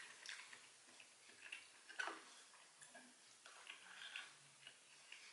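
Near silence with a few faint, scattered clicks and ticks of eating: a spoon working in a foil MRE food pouch, and chewing.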